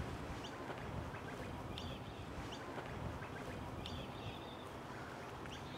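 Birds chirping in short, rising calls over a faint, steady outdoor background.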